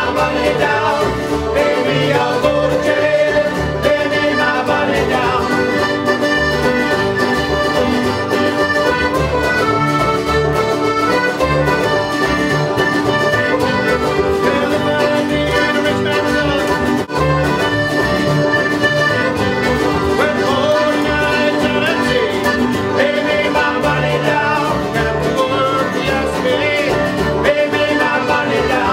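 Folk band music playing steadily, with held melodic notes over a regular beat.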